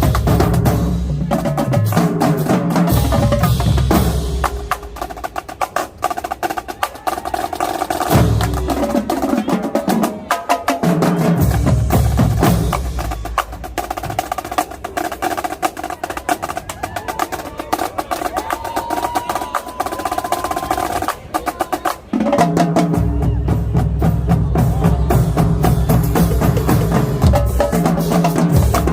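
Marching drumline playing a cadence: dense rapid snare strokes throughout, with the bass drums dropping out for long stretches in the middle and coming back in strongly near the end.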